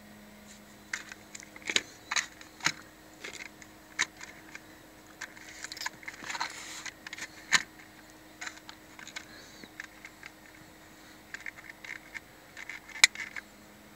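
Small plastic 1/28-scale RC cars handled on a tabletop: irregular clicks and knocks of plastic bodies and rubber wheels being picked up and set down, with a short rustling noise midway and the sharpest knock near the end.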